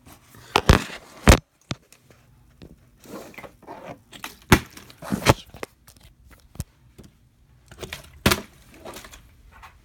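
A plastic water bottle being flipped and landing on a wooden surface: several sharp knocks spread through, with lighter clicks and rustling between them.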